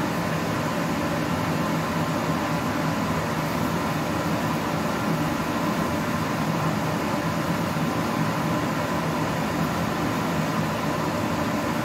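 Steady hum of an electric fan, an even whirring drone with a faint constant whine.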